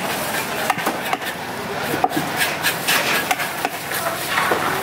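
A broad knife blade scraping the scales off a trevally on a wooden chopping block, in quick, irregular rasping strokes.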